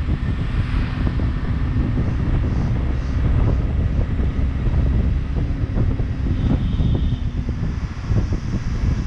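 A vehicle running steadily with a low rumble while wind buffets the microphone.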